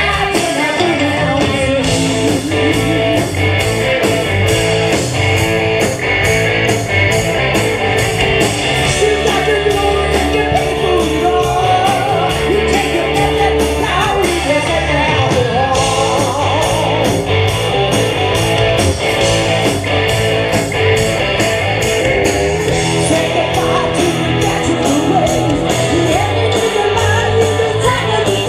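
Live rock band playing: electric guitar over a steady drum beat, with singing.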